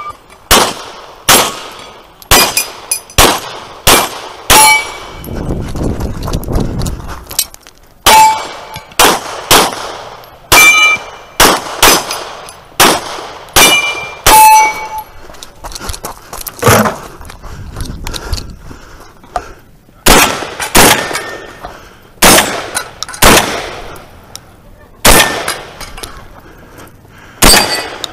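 Pistol shots fired in quick strings at steel targets, many followed by a short metallic ring from the struck plate. There are about thirty shots, with a pause of a few seconds about five seconds in and a shorter one after about eighteen seconds.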